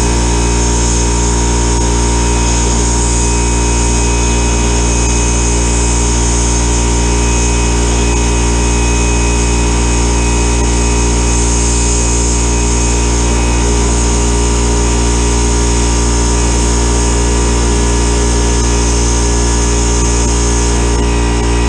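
Sandblast cabinet gun hissing steadily as it blasts abrasive media against a small metal bracket, etching the surface for coating. Under it, a shop air compressor runs with a steady low hum; the whole sound is loud and unbroken.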